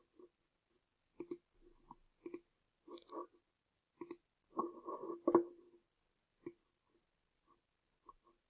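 Several faint computer-mouse clicks at irregular intervals, with a few softer dull knocks and rustles between them.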